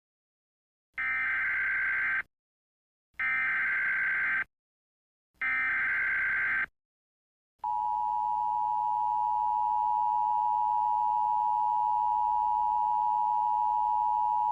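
Emergency Alert System SAME header: three identical screeching digital data bursts, each a little over a second long. After a short gap they are followed by the long, steady two-tone EAS attention signal that announces a new warning.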